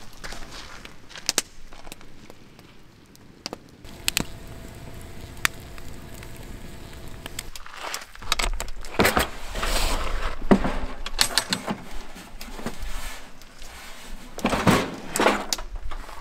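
Handling noises: a series of sharp clicks and knocks with rustling, growing louder and busier with low thumps from about halfway through.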